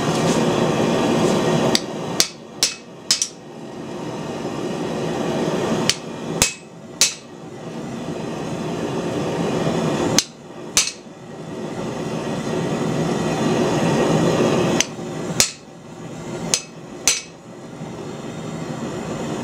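Hand hammer striking a red-hot bar of tough medium-high-carbon steel on an anvil, forging an ax eye drift. The blows come in short bursts of two to four, about thirteen in all, with pauses of a few seconds between, over a steady rushing noise.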